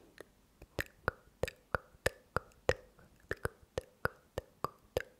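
ASMR 'tk tk' mouth sounds: sharp tongue clicks made with a hand cupped beside the mouth right at the microphone, repeated evenly at about three a second.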